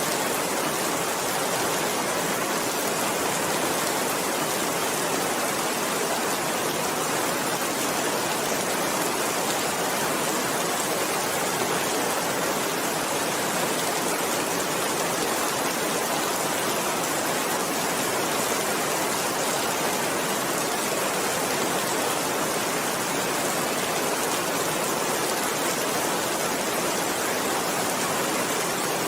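Steady rain falling, an even hiss that holds constant with no breaks or thunder.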